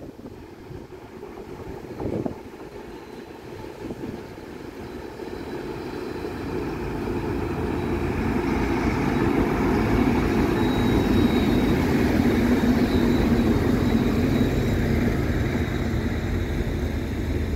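A pair of VR Class Dv12 diesel-hydraulic locomotives approaching and passing, their engines growing steadily louder to a peak about ten seconds in and then easing slightly. A faint thin high squeal rides over the engine noise around the middle.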